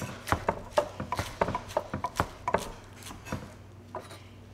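Chef's knives slicing rolled-up basil leaves into a chiffonade on wooden cutting boards: quick, even knocks of the blade on the board, about four or five a second, stopping near the end.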